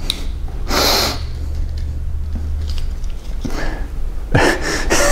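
A person laughing under their breath in two short breathy bursts, one about a second in and one near the end, over a low steady hum.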